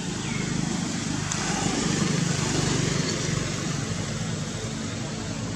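A motor vehicle's engine drone with road noise, growing louder about two seconds in and then easing off.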